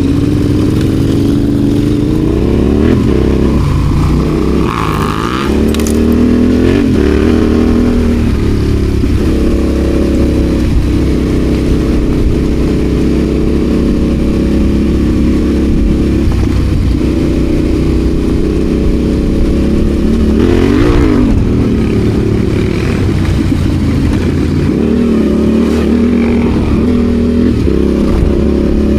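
Adventure motorcycle engine running as the bike is ridden off road, the pitch rising and falling with throttle changes, with brief scuffs and clatters a few seconds in and again about two-thirds through.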